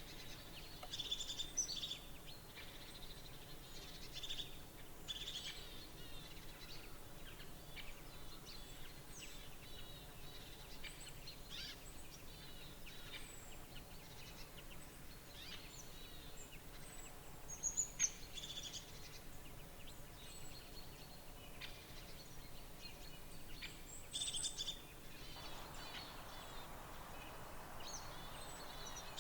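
Outdoor ambience with birds calling: scattered short, high chirps and call notes, with one brief louder call about eighteen seconds in. A faint steady hiss comes in near the end.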